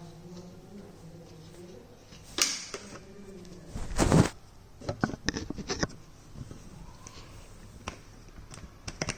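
3D-printed plastic phone holder being handled and screwed tight onto a tripod mount: scattered clicks and knocks, with a louder knock and rustle about four seconds in and a quick run of clicks just after.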